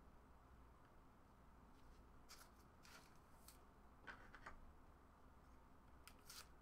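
Near silence with a few faint clicks and light rustles of trading cards being handled.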